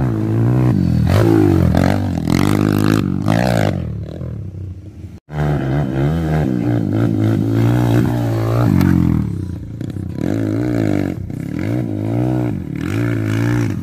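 Honda CRF150L bored out to 266cc, its single-cylinder four-stroke engine revving hard as the dirt bike is ridden, pitch climbing and dropping again and again with throttle and gear changes. The sound breaks off for an instant about five seconds in.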